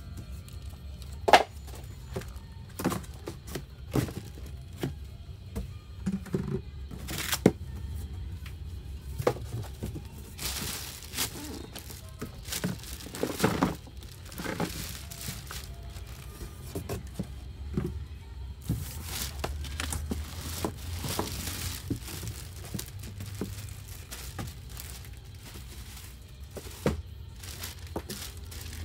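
Clear plastic wrapping on the parts of a kids' electric ride-on car crinkling and rustling as they are handled in a cardboard box, with scattered sharp clicks and knocks. The longest bouts of crinkling come about a third of the way in and again just past the middle.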